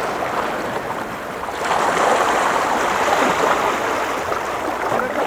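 Steady rush of water at the shoreline, swelling about one and a half seconds in and slowly easing off.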